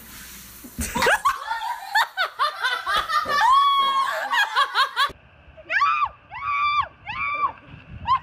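A girl laughing hard and shrieking after falling onto the floor. About five seconds in it changes to four evenly spaced squeals that rise and fall.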